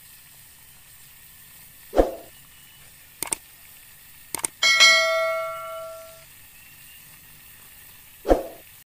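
Intro-animation sound effects for a subscribe button: a dull hit about two seconds in, two quick mouse clicks, then a notification bell ring that fades over about a second and a half, and another dull hit near the end.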